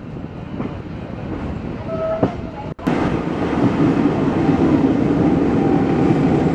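Historic steam train running on the rails, a steady rumbling rail noise with a few faint clicks. About three seconds in the sound breaks off for an instant and comes back louder and steadier.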